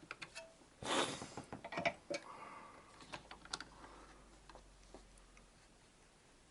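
Scattered light clicks and taps from handling the carving clamp and handpiece, with a short scrape about a second in.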